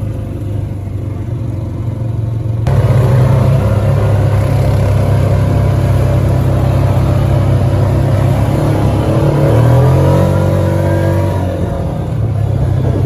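Quad (ATV) engine running while being ridden, getting abruptly louder about three seconds in, with the engine pitch rising and falling briefly near the end as it revs.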